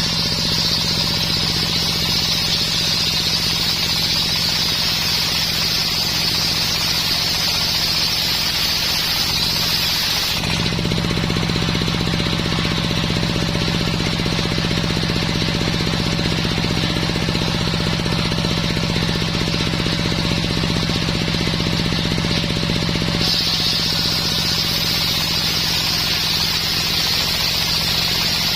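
Homemade circular sawmill running steadily while sawing coconut wood, with a rapid mechanical rattle and a low hum. About ten seconds in, a high hiss drops away and the low hum grows stronger; near the end the hiss returns.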